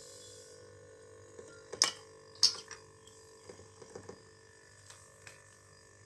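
Refrigerator compressor running with a steady hum, under a hiss that fades out in the first half-second. About two seconds in come two sharp metallic clicks, the loudest sounds, then a few lighter knocks as the manifold gauge set is handled and set down.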